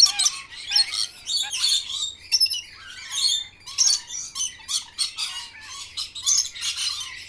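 Several birds chirping and squawking at once, a dense run of short, overlapping high calls.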